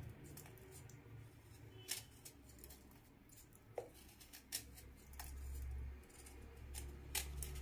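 Faint scrapes and scattered light clicks of a serrated knife shaving a lump of jaggery, the bits dropping into a steel bowl, over a low steady hum.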